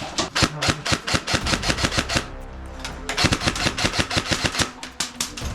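Airsoft gunfire: a rapid string of shots lasting about two seconds, a brief pause, then a second rapid string of about two seconds.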